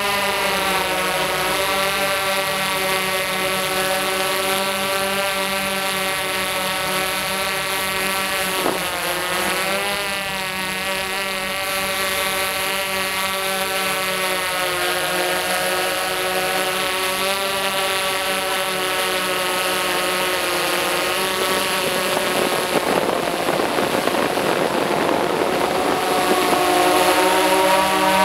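Tarot X8 octocopter with DJI 1552 propellers in flight: a steady hum of several propeller tones that slide up and down in pitch as the motors change speed. It grows louder near the end as the drone comes closer.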